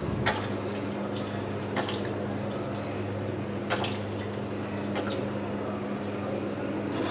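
Cooking oil being poured into a nonstick frying pan, dripping and trickling, over a steady low hum with a few faint ticks.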